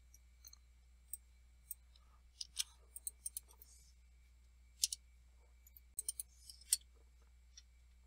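Faint, irregular clicks of computer keyboard keys as terminal commands are typed, in small clusters with pauses between them, over a faint low steady hum.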